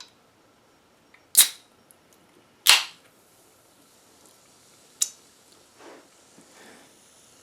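A woman burping: two loud, short burps about a second and a half apart, then a sharp click and two softer, shorter burp sounds near the end.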